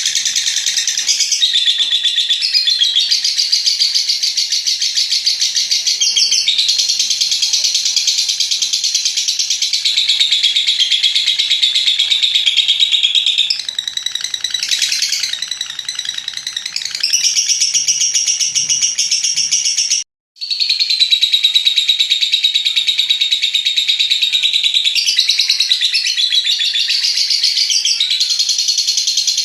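Lovebird chattering ('ngekek') in long, unbroken runs of rapid high-pitched notes. The sound cuts out suddenly for a moment about twenty seconds in, then the chatter resumes.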